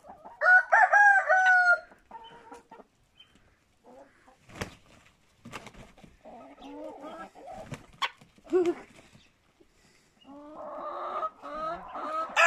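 A rooster crows about half a second in, one call in a few stepped notes. Chickens then cluck softly on and off, with a couple of short knocks. The calling grows busier again near the end.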